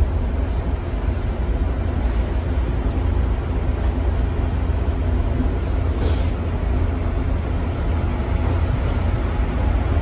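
Electric commuter train running, heard from inside the driver's cab as it pulls along and past a station platform: a steady low rumble with a few faint clicks and a brief hiss about six seconds in.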